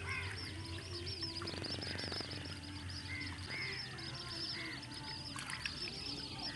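Chorus of small animals calling around a flooded paddy field: a dense run of quick high chirps throughout, with louder arched calls repeating every half second or so over a low steady hum. A brief rapid rattle comes about a second and a half in.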